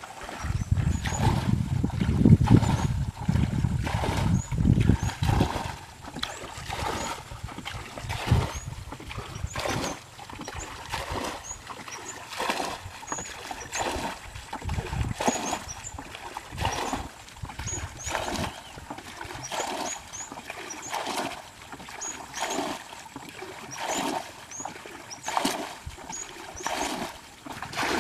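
Water splashing in a steady rhythm, about once a second, as a plastic bucket scoops muddy water from a shallow pool and throws it out: the pool is being bailed dry. A low rumble covers the first few seconds.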